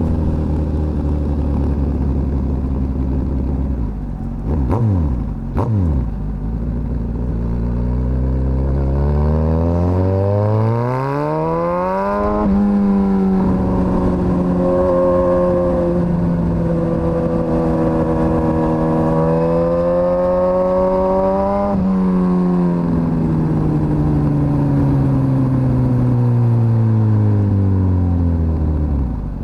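Suzuki GSX-S1000's inline-four engine running low and steady, with two brief dips in pitch. Its pitch then rises steadily for about five seconds, changes abruptly, holds fairly level for about nine seconds, and falls away gradually over the last seven seconds.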